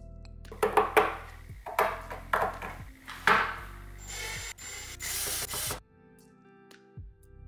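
Cordless drill driving screws into a cabinet side panel to mount door hinge plates. It runs in several short bursts, then once for longer near the middle, over background music.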